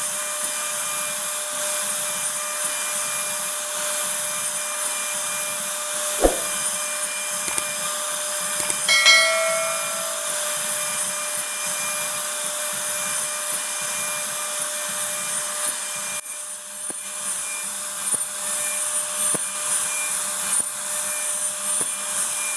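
CNC router cutting wood: a steady high hiss with a constant whine from the spindle. There is a sharp knock about six seconds in and a brief ringing tone about nine seconds in.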